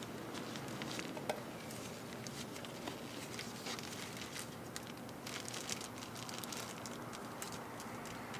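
Light crinkling with scattered small clicks, denser around the middle, from a plastic bag and butter wrapper being handled, over a steady outdoor hiss.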